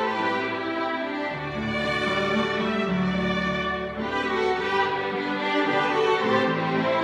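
A violin ensemble playing a waltz: many violins bowing sustained melody notes together, over a lower part that moves to a new note every couple of seconds.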